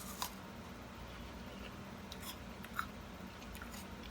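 A person chewing a bite of green apple, with a few short, scattered crunches and mouth clicks over a faint steady hum.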